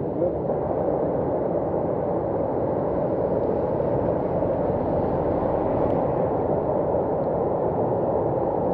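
Flooded, overflowing stream with brown floodwater rushing: a steady, low, unbroken rush of water.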